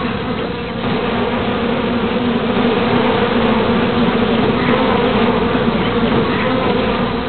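Honeybee colony buzzing: many bees' wings together in a loud, steady hum.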